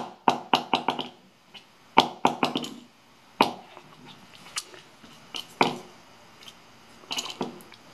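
Light clicks and taps of small hard resin 3D prints being handled and set down on a rubber work mat, in irregular clusters of sharp knocks, a few with a short ring.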